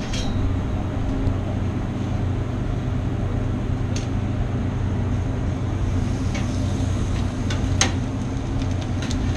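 Steady low hum of a kitchen extraction hood fan over a grill, with a few sharp clicks of metal tongs against the grill and plate.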